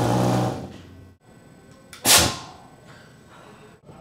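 Fuel vapour in a glass jam-jar jet catching light with a whoosh and a low hum from the jar, dying out about a second in; a second, sharper whoosh about two seconds in.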